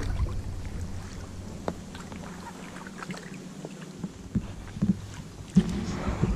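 Inflatable kayak being paddled in calm water: paddle blades dipping and dripping, with a few short sharp clicks and knocks over a low steady rumble.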